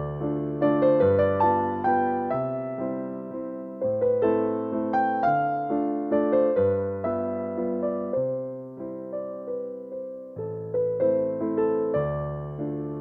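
Background music: a slow, gentle solo piano piece, a melody of single notes over low held bass notes.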